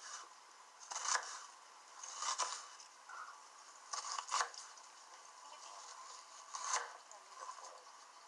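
Kitchen knife slicing through a raw onion on a cutting board: about five separate cuts a second or two apart, each a short crisp crunch, some in quick pairs.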